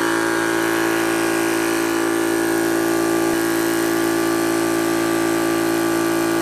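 Yong Heng two-stage piston high-pressure air compressor running steadily under load with an even mechanical hum. It is near the end of a fill, pushing the tank towards 4,000 PSI and drawing close to 17 amps.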